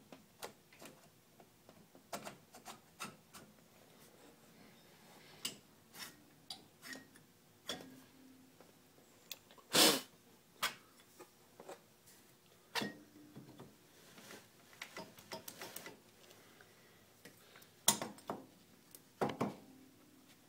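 Scattered metal clicks and light knocks as a Honda 300 ATV engine cylinder is slid down over the head studs onto the base gasket and settled into place. The two loudest knocks come about halfway and near the end.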